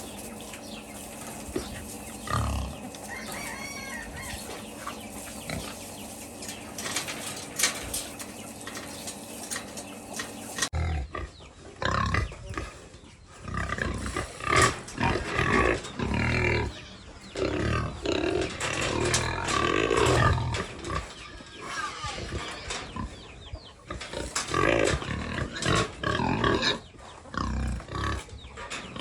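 Pigs grunting and squealing at feeding, with some hens clucking. The calls come in loud irregular bursts from about eleven seconds in, over a steadier, quieter stretch before.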